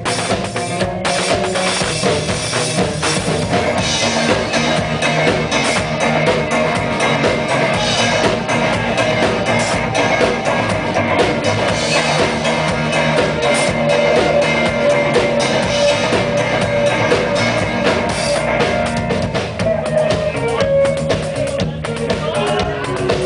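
Live rock band playing loud and dense, with electric guitar over a drum kit, heard from within the audience.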